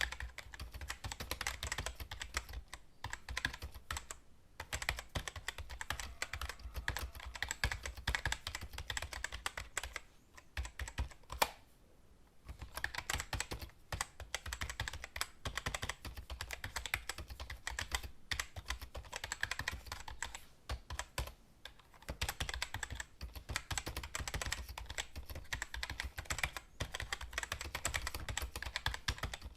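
Typing on a computer keyboard: runs of quick key clicks, broken by short pauses about four seconds in, for a moment around ten to twelve seconds in, and again near twenty-one seconds.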